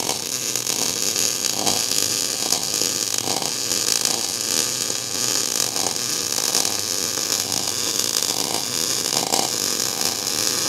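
MIG/MAG welding arc burning steadily, the torch dragged (pull technique) along a tube joint: an unbroken crackling hiss.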